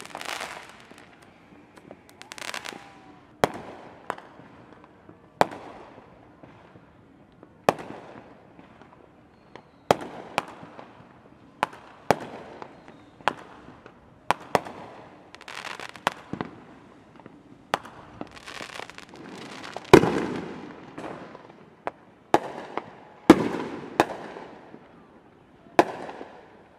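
Fireworks going off: about twenty sharp bangs at irregular intervals, mixed with longer hissing, crackling bursts. The loudest bangs come about two-thirds of the way through.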